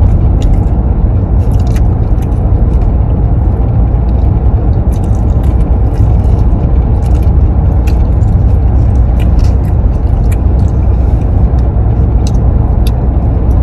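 Steady low road rumble inside a moving car's cabin, with scattered small clicks and crunches of people biting and chewing fried chicken.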